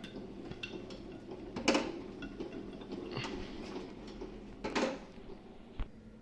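Parts of a commercial orange juice machine being handled and fitted: scattered light clicks and knocks of plastic and metal, two louder clacks about three seconds apart and a dull thump near the end, over a faint steady hum.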